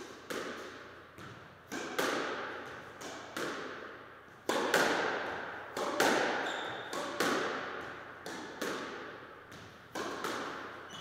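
Squash rally: the ball smacked by rackets and hitting the walls, a sharp hit every half second to a second, each ringing on in the enclosed court. The hardest hits come near the middle, and there is a short squeak about six seconds in.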